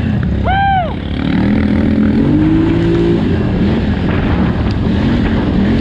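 2018 Polaris Scrambler 1000XP ATV's twin-cylinder engine under race throttle, its pitch rising and falling as the rider works the throttle over the course. About half a second in there is a brief, sharp, high-pitched rev spike.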